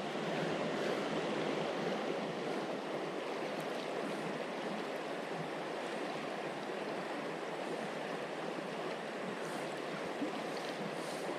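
Creek water running steadily over its bed: a continuous, even rushing.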